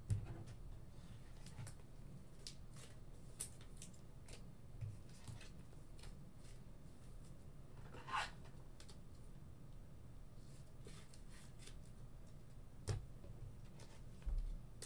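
Faint handling of trading cards and plastic card holders on a table: scattered light clicks and taps, a soft sliding brush about eight seconds in, and a couple of small knocks, with a soft thump near the end as cards are set down.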